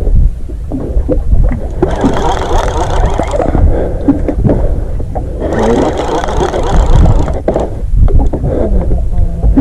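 Wind rumbling on the microphone and water sloshing against a small boat's hull, with scattered light clicks and knocks.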